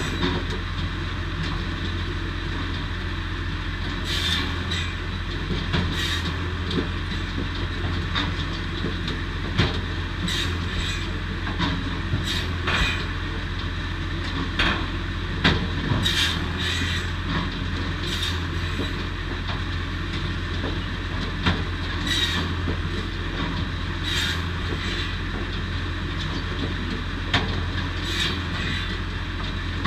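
Posch SmartCut 700 firewood saw running steadily, with sharp knocks and clatter every second or two as logs are fed in and cut into firewood.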